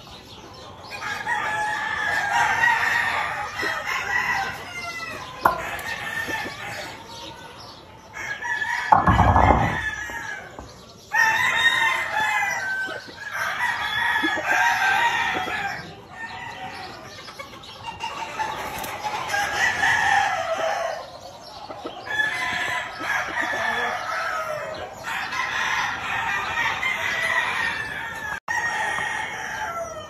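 Several gamefowl roosters crowing one after another, a long crow every few seconds, some overlapping at different pitches. A heavy low thump about nine seconds in.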